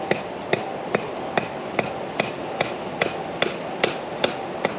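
Steady, even hammering: sharp blows about two and a half times a second.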